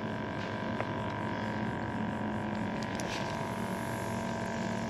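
A steady, even mechanical hum with a few flat tones, and a light click about a second in.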